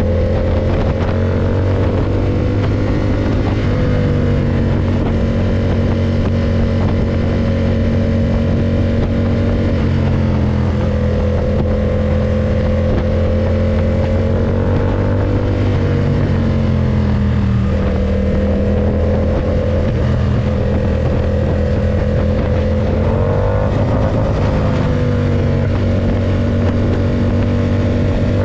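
Ducati SuperSport 939's L-twin engine running steadily at cruising speed, its pitch dipping and rising gently a few times as the throttle changes, and starting to climb right at the end.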